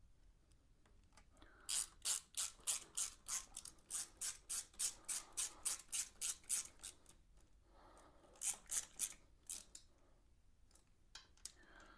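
Hand ratchet clicking in quick runs, about four clicks a second, as valve-cover bolts are turned in. There is a long run of clicks, then a shorter one about eight and a half seconds in.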